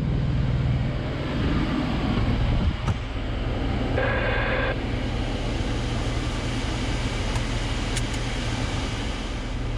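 Steady engine and road noise heard inside a vehicle's cabin while driving. About four seconds in there is a short buzzy tone lasting under a second, and a click just before it.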